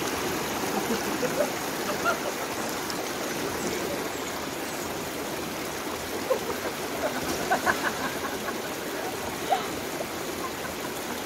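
Mountain river running over rocks in a steady rush, with a few small splashes of bathers in the pool.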